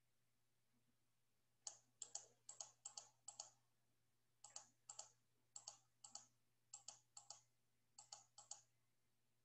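Faint clicking at a computer: sharp clicks in quick pairs, about two pairs a second, starting a couple of seconds in and coming in three runs with short pauses between them.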